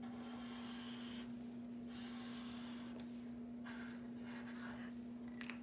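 Black Sharpie felt-tip marker drawing on paper: faint scratchy strokes, several in a row, as the outline of a knife is traced.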